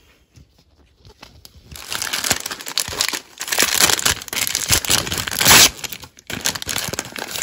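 Plastic wrapping of a Mini Brands Mini Fashion blind capsule crinkling and rustling as hands open and handle it. It starts about two seconds in and keeps going, loudest a little past the middle.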